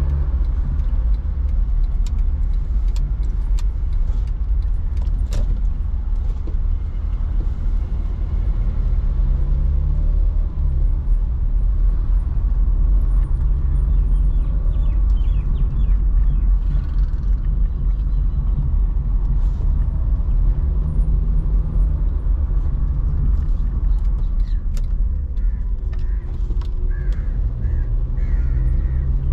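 Car driving: a steady low rumble of engine and road noise, the engine note rising a few times as it picks up speed, with scattered light clicks.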